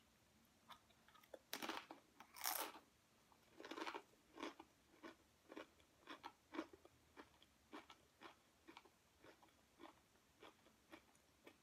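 Close-miked chewing of crunchy food: a couple of louder crunches in the first few seconds, then a steady run of softer chews about two a second that fade as the mouthful is worked down.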